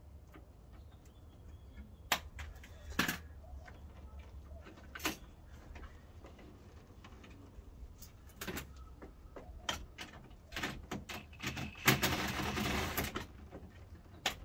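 Scattered clicks and knocks of hand work on a plastic front lip spoiler and its fasteners under a Mazda Miata's nose, with a louder scraping rattle lasting about a second near the end.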